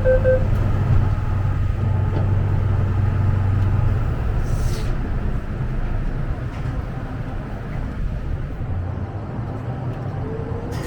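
MTR M-train electric multiple unit running between stations with a steady low rumble and hum. The hum eases off about four seconds in, and a short rising whine comes near the end.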